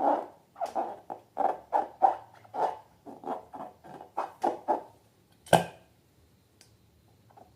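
Slime being worked by hand: a quick run of short, soft squelches, about three a second, that stops about five seconds in, followed by a single sharp click.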